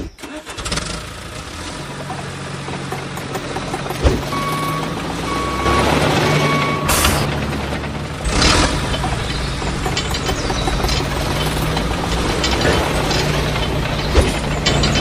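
Small motor running steadily with a mechanical rattle. Three short, even beeps come about four to seven seconds in, followed by a brief burst of noise.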